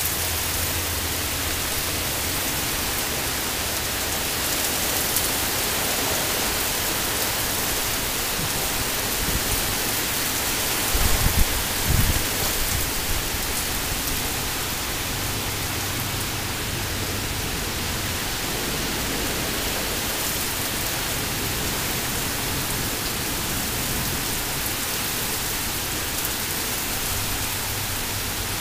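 Heavy rain pouring down in a severe thunderstorm, a steady dense hiss. About eleven seconds in there is a brief low rumble.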